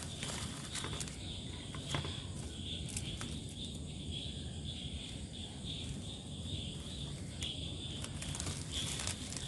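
Banana-leaf wrapping around a grilled fish rustling and crackling now and then as it is untied and opened by hand. Under it, insects chirp in a steady, pulsing high trill.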